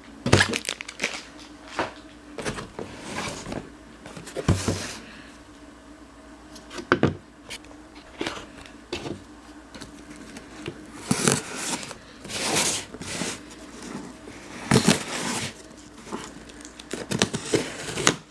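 Knife slicing through packing tape on a cardboard box, in several long swishes, amid crinkling, scraping and sharp knocks as the box is handled.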